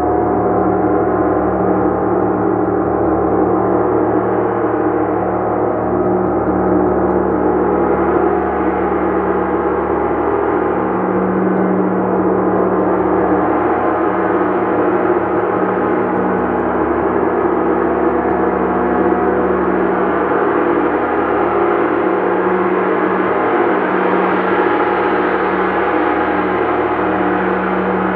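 Gong played continuously: a dense, sustained wash of many overlapping tones, steady in loudness, with no single strike standing out.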